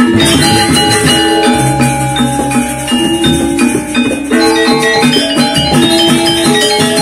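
Lombok saron gamelan ensemble playing: bronze metallophones ring out a steady, rhythmic melody over a two-headed kendang drum and a small kettle gong.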